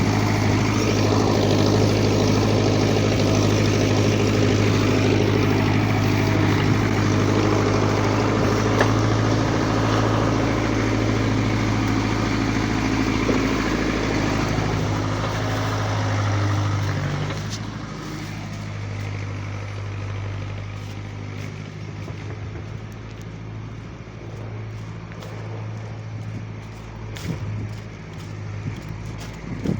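A work vehicle's engine running steadily with a strong low hum; about two-thirds of the way through it becomes noticeably quieter.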